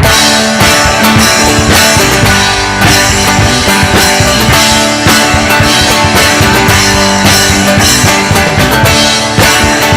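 Live rock band playing an instrumental passage with drum kit and guitar, no vocals.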